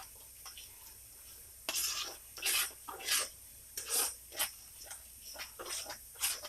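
A spoon stirring and scraping through a pot of melted garlic butter sauce as brown sugar is mixed in, in repeated short strokes about twice a second starting a second or two in.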